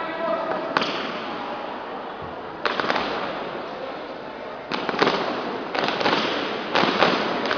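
Drill team's synchronized stamps and claps, about eight sharp smacks at uneven intervals, echoing in a large hall.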